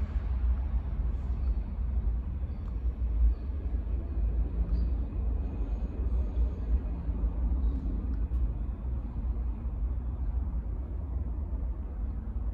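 Subway train approaching slowly through the tunnel toward the platform: a steady low rumble.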